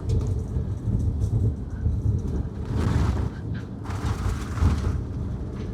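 Steady low road rumble of a vehicle towing a caravan on a dirt road, heard from inside the cabin, with two louder rushes of noise about three and four to five seconds in as oncoming vehicles pass.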